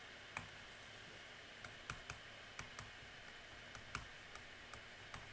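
About ten faint, sharp computer clicks at irregular intervals, of a mouse or keyboard being used to move between slides.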